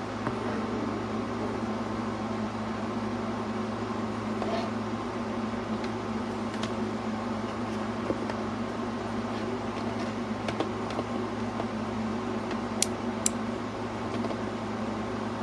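WEN handheld rotary tool's electric motor running at a steady speed, with a few faint ticks over its hum.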